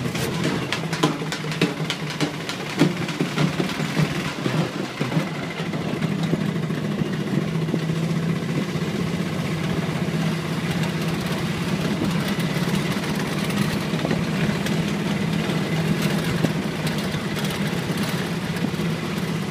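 Vehicle engine running steadily, heard from on board while driving along a rough road, with knocks and rattles over the first few seconds.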